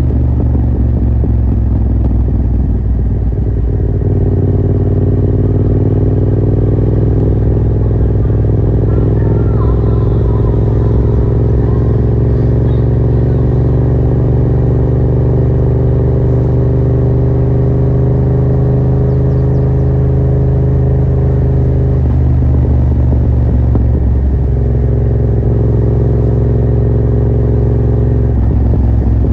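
Yamaha MT-07's parallel-twin engine heard through a Yoshimura R77 exhaust with the dB killer removed, running loud and steady under way. Its note climbs slowly, then dips and picks up again briefly about 22 and 24 seconds in and once more near the end.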